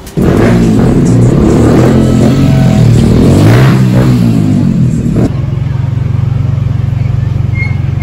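Motor vehicle engine revving, its pitch rising and falling, then settling into a steady low hum about five seconds in.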